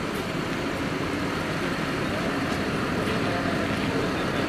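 Street traffic noise: vehicles running nearby, a steady mix of engine hum and road noise.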